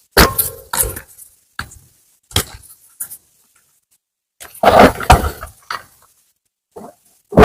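Reformed gym chalk 'pies' crunching and crumbling as they are crushed, in short separate crunches with a pause of about a second in the middle; the longest and loudest crunch comes about five seconds in.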